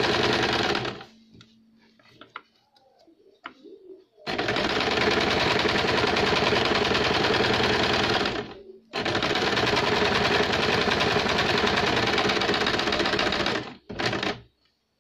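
Domestic sewing machine running in stitching runs through blouse fabric: a short run at the start, a pause with a few small clicks, then two long runs of about four and five seconds with a brief stop between, and a short burst near the end.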